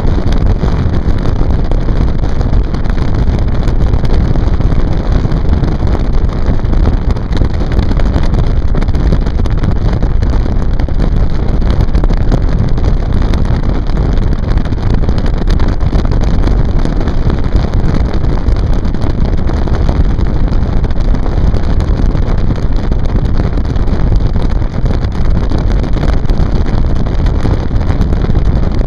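Loud, steady wind rumble on the microphone aboard a moving motorboat, with the boat's engine and water noise mixed in.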